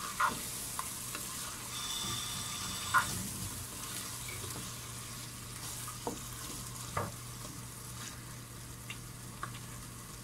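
Chicken pieces frying in onion-tomato masala, sizzling steadily while a wooden spatula stirs and scrapes through them, with a few knocks of the spatula against the pan, the loudest about three seconds in.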